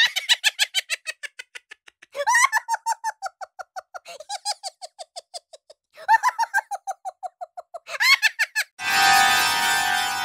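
High-pitched giggling laughter sound effect: five runs of rapid, evenly repeated 'hee-hee' pulses, each run starting higher and falling in pitch as it fades. Music takes over near the end.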